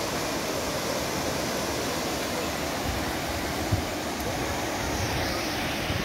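Surf washing onto a flat sandy beach: a steady rushing noise, with a brief low thump a little after halfway.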